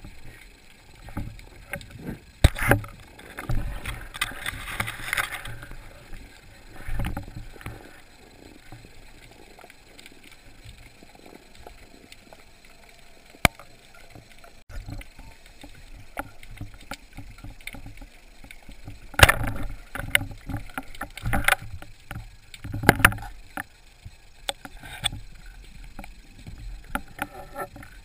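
Underwater sound of a freediving spearfisher's movements and gear: water swishing around the camera with uneven clusters of muffled knocks and bumps, heaviest a few seconds in and again about two-thirds of the way through, and one short sharp click near the middle.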